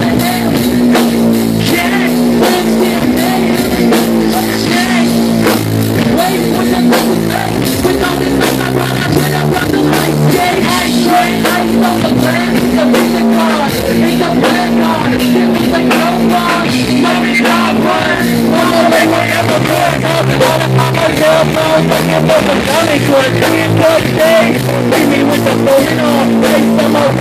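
A live rock band playing loudly: electric guitar over a drum kit keeping a steady beat, with a singer's voice in the mix.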